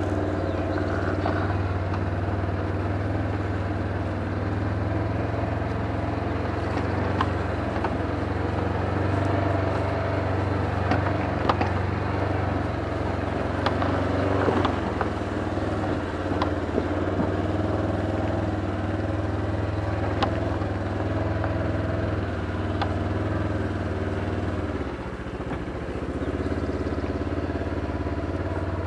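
A vehicle engine running steadily, with scattered clicks and rattles over it; the engine note eases slightly near the end.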